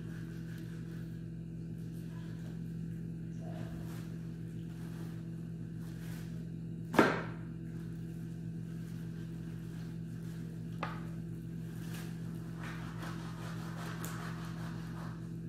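A knife chopping through raw meat onto a wooden board: one sharp knock about halfway through and a lighter one a few seconds later. A steady electrical hum runs underneath.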